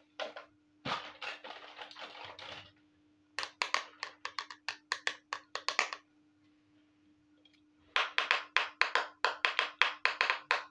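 Miniature plastic toy cookware being handled: a couple of seconds of rubbing and scraping, then two quick runs of light, sharp plastic clicks and taps, about five a second.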